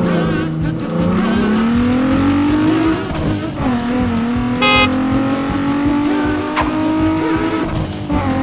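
An engine sound rising slowly in pitch over the first few seconds, then running steadily at a higher pitch. A short beep-like tone cuts in about halfway through, and a brief click comes a little later.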